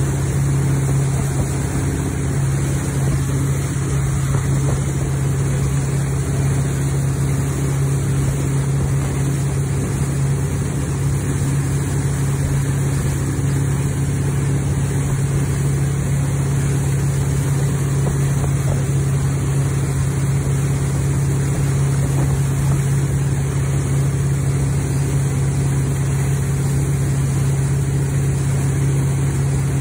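Towing boat's engine running steadily at wake-surfing speed, a constant low drone that does not change in pitch, with the wake's churning water rushing underneath.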